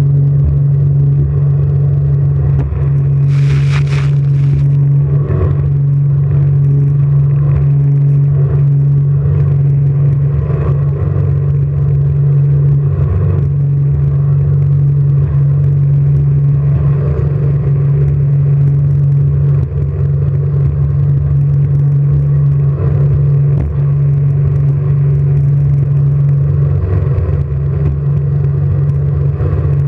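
Jet boat engine running at a steady drone under way, with rumble beneath it. A brief burst of hiss about three and a half seconds in.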